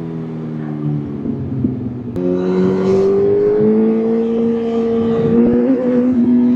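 Motorcycle engine running under way: its note falls slowly as it slows, then, after an abrupt change about two seconds in, rises as it accelerates and holds steady.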